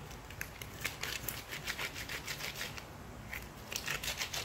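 Gloved hands rolling and kneading a lump of MAX EMC epoxy molding clay between the palms: quick runs of rubbing, squeaking strokes, several a second, with a short pause about three seconds in.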